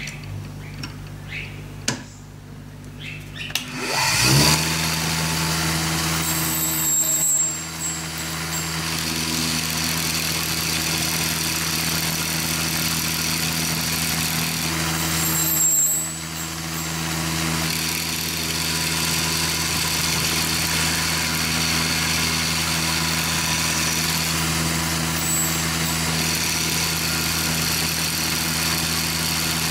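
Electric motor of a shop-made four-facet drill bit grinder switched on after a few handling clicks, rising in pitch as it spins up about four seconds in and then running with a steady hum while a 3/32" drill bit is sharpened.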